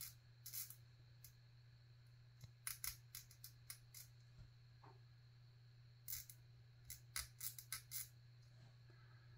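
Faint, irregular clicks and scratches of a small hand tool scraping primer from inside a 1/35 scale plastic figure's helmet, coming in short clusters with pauses between.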